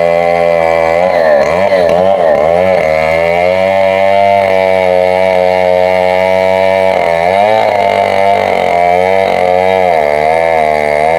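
Stihl MS 070 two-stroke chainsaw running at full throttle while cutting through a thick mango trunk. Its engine pitch dips and recovers as the chain loads in the cut, about a second in, again around seven seconds in, and near the end.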